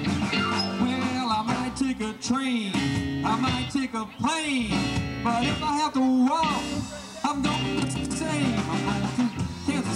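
Live band playing an upbeat rock-and-roll number through PA speakers, with electric guitar over upright bass and drums; the guitar's pitch bends up and down, with sliding notes.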